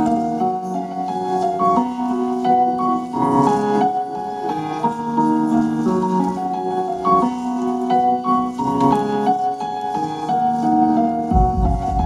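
Piano music playing a melody over chords, with a deep low sound coming in near the end.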